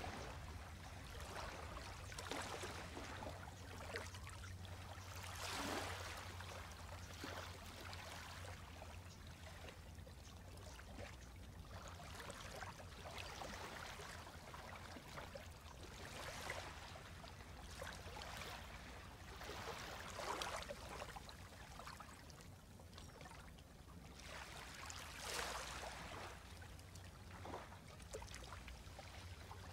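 Small, gentle waves lapping and washing over a shallow pebbly shore of calm sea water, each soft wash swelling and fading every few seconds, over a low steady rumble.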